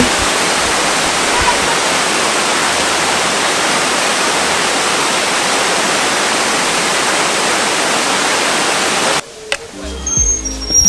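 A waterfall rushing steadily. About nine seconds in it cuts off suddenly and music with a deep bass line begins.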